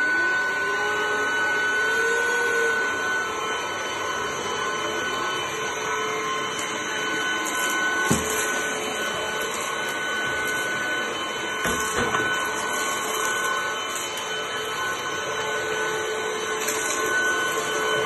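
Cordless stick vacuum cleaner running steadily with a high whine as its floor head is pushed over tiled floor. A lower tone rises over the first couple of seconds, and the head knocks a couple of times.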